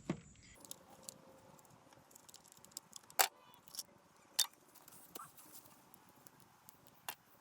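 Scattered small metallic clicks and taps, a few sharper ones about three, four and seven seconds in: hand work with a screwdriver on a Husqvarna 395 chainsaw while its kill switch is being replaced.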